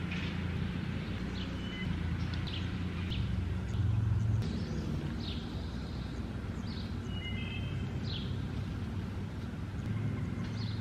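Outdoor birds chirping, short downward-sweeping calls about once a second with a few brief whistled notes, over a steady low rumble.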